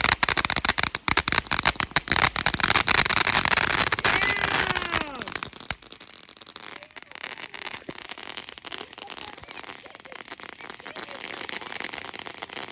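Ground fountain firework spraying sparks with a dense, rapid crackle, loud for about the first five seconds, with a few short whistles about four seconds in, then dropping to a fainter crackle.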